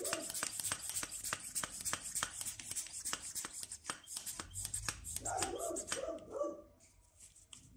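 Cooling-system pressure tester being pumped up on the coolant expansion tank: rapid light clicks, a few a second, with two short squeaky whines, stopping shortly before the end.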